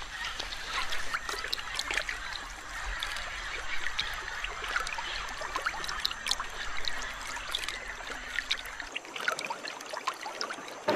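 Water trickling and splashing, with many small scattered ticks and drips.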